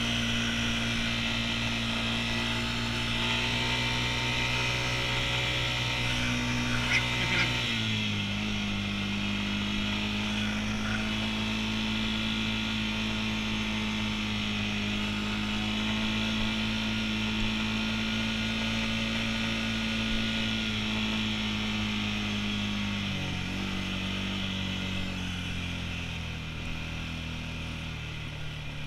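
ATV engine running steadily under way. Its pitch steps down about eight seconds in and again about twenty-three seconds in, then sinks lower and quieter near the end.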